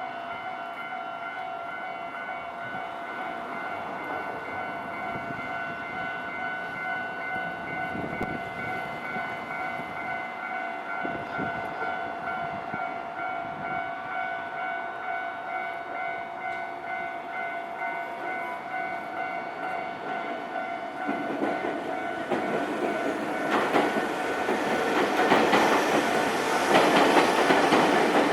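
A Japanese level-crossing alarm rings over and over in steady pulsing tones. About two-thirds of the way through, a Nankai Railway train comes through the crossing, its wheels clattering on the rails and growing louder toward the end.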